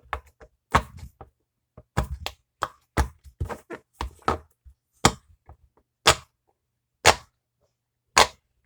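Round silicone pop-it fidget having its bubbles pushed through one after another: a string of sharp pops, several a second at first, then about one a second near the end.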